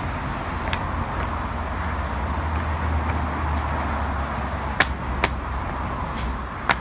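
Concrete paving blocks knocking together, three sharp clinks in the second half, over a steady low rumble.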